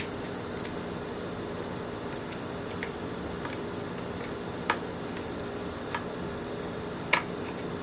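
A few sharp, light clicks of small parts being handled during a vacuum cleaner repair, over a steady low room hum.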